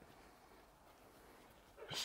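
Mostly quiet, with one short bark from a rough collie puppy near the end.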